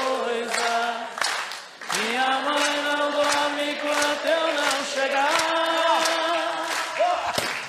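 Unaccompanied voices singing long held notes that slide from one pitch to the next.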